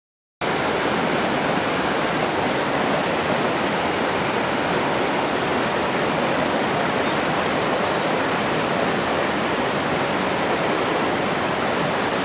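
Steady rush of a fast mountain river's whitewater tumbling over rocks, starting suddenly about half a second in.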